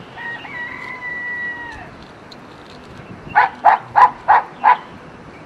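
An animal calling: one long, steady call, then a quick run of five short, loud calls at about three a second.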